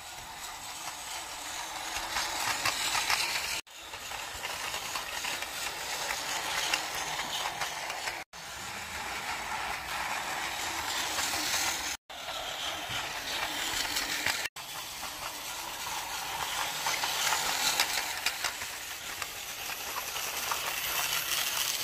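Battery-powered Plarail toy trains running on plastic track: a steady motor whirr with wheels rattling, swelling and fading as they pass, broken by four brief sudden gaps.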